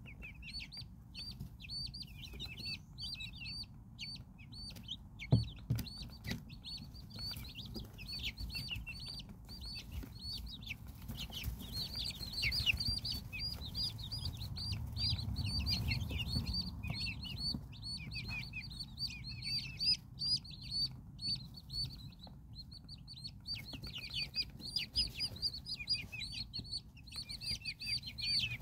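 A brood of baby chicks peeping without a break: many short, high chirps that fall in pitch and overlap one another. A single sharp knock sounds about five seconds in.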